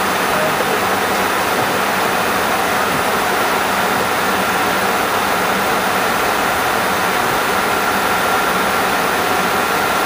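Steady flight-deck noise of an MD-80 in the climb: an even rush of airflow with the engines' hum beneath it and a faint, steady high tone.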